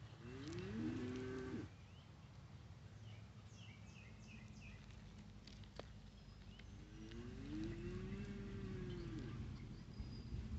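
Cattle mooing twice, faint: a short call rising in pitch near the start, then a longer call that rises and falls about seven seconds in. A few short high chirps come in between.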